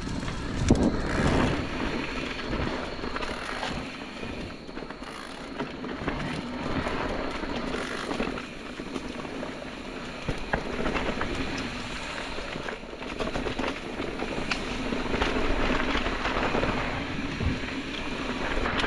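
Orbea Wild FS electric mountain bike ridden over a leaf-covered dirt singletrack: steady tyre noise on the trail, with frequent clicks and rattles from the bike over bumps.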